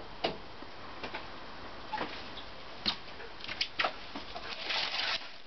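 Scattered light clicks and knocks, then a short spell of rustling near the end: handling noise from someone moving about and working around a parked motorcycle.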